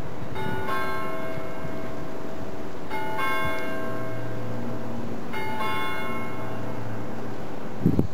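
Bell of an 1850s three-train ting-tang turret clock striking three slow strokes on one bell, about two and a half seconds apart, each left ringing on.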